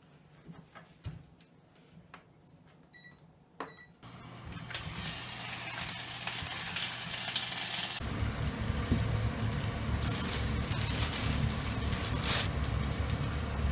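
Two short electronic beeps from an induction hob as it is switched on, then a steady hum with hissing as sausages fry in the pan. About two-thirds of the way through, a louder low rumble takes over.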